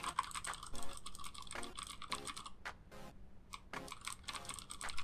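Computer keyboard typing: quick, uneven key clicks in a running stream.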